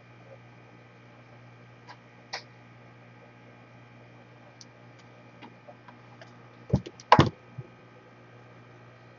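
Scattered small clicks and taps of hand tools and parts being handled at an electronics repair bench, with a cluster of louder knocks about seven seconds in, over a steady electrical hum.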